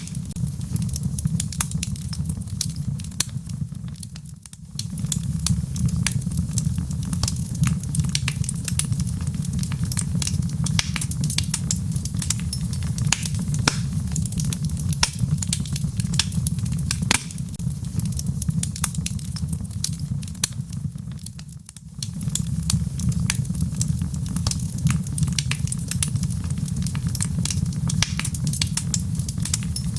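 Log fire burning in a fireplace: a steady low rumble of flames with frequent sharp crackles and pops from the burning wood. The sound dips briefly twice, once about four seconds in and again past the twenty-second mark.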